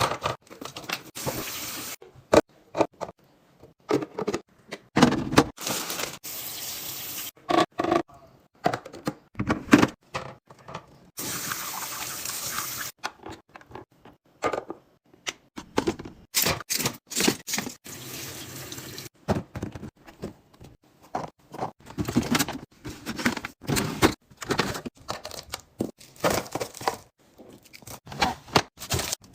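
Kitchen handling sounds cut into quick clips: short knocks and clinks of containers being set down and handled, with stretches of running tap water.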